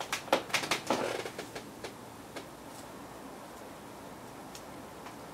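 A handful of light clicks and taps as small hardware parts are handled on a table, bunched in the first second, then quiet room tone with a few faint, scattered ticks.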